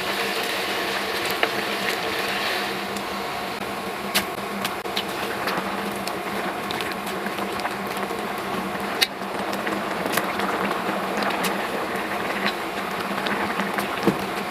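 A steady mechanical hum with a hissing edge, broken by a few sharp clicks and taps.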